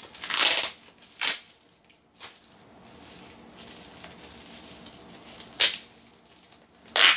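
Plastic packaging crinkling and tearing as it is opened by hand, in several short bursts: a longer one at the start, a short one about a second in, and two more near the end.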